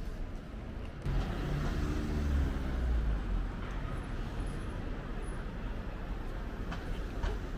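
A motor vehicle's engine passing along the street, swelling about a second in, loudest around two to three seconds in and then fading, over steady traffic noise.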